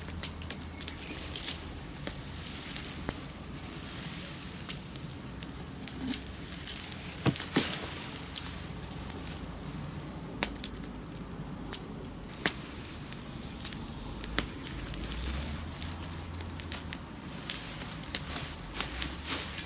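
Wood campfire crackling, with irregular sharp pops and snaps over a low rumble. A high steady hiss joins about twelve seconds in.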